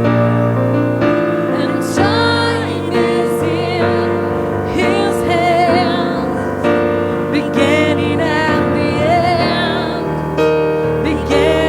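Gospel music: sustained keyboard chords under a sung melody with vibrato.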